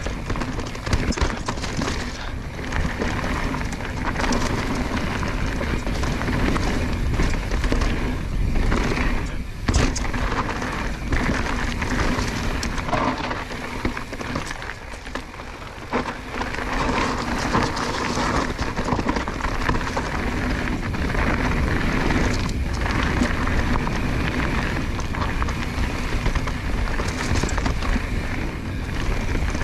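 Mountain bike ridden down a dirt flow trail: a continuous rush of tyre and riding noise, with scattered sharp knocks and rattles from the bike over bumps, and a briefly quieter stretch about halfway through.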